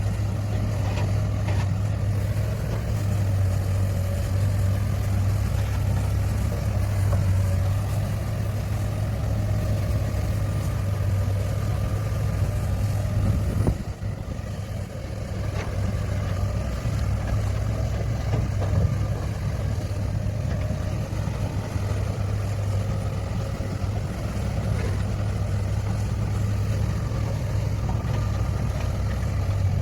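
Heavy diesel earthmoving machinery running steadily with a deep, constant engine drone, briefly dipping about halfway through.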